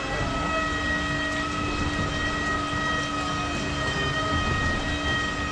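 Glass-bottom tour boat's motor running steadily under way: a low rumble with a constant whine at several pitches.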